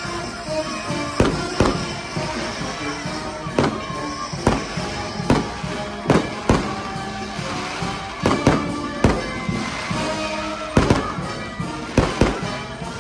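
Fireworks going off in sharp, irregular bangs, more than a dozen of them, over music with steady held notes.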